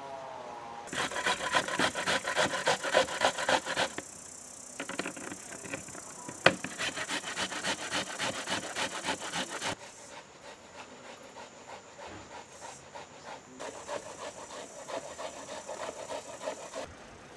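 Onions being grated on a metal box grater: quick, rhythmic rasping strokes, several a second, louder in the first half and softer later, with one sharp click about six seconds in.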